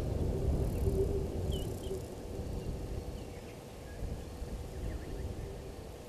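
Outdoor bush ambience: a low rumble that eases off over the first few seconds, under a faint steady hum. Two brief, high bird chirps sound about a second and a half in.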